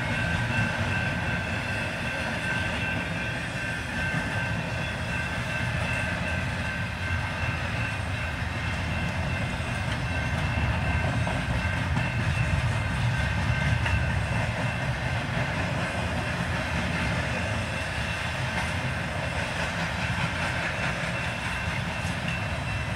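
CN intermodal freight train of container cars passing through a grade crossing, a steady rumble with the clatter of wheels over the rail joints, heard from inside a car. A steady high-pitched ringing tone sits over it, strongest in the first few seconds and again near the end.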